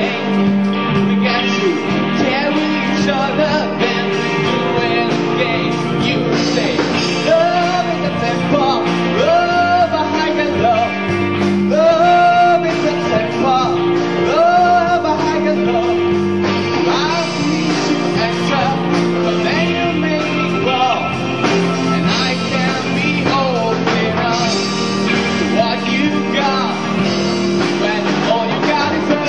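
A man singing a solo song into a microphone over steady instrumental accompaniment, with several long held notes in the middle.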